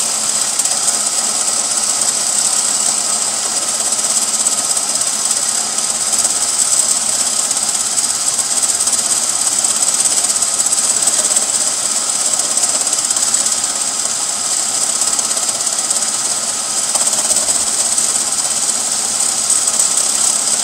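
Chevrolet Beretta's 3.1-litre V6 running with a steady rattling noise over a high hiss, a rattle the owner traced to a failing AC compressor.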